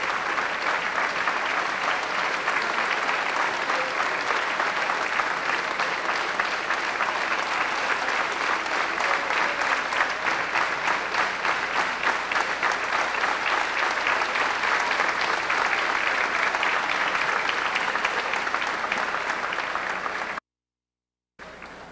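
Audience applauding steadily as many people clap at once. The applause cuts off suddenly near the end.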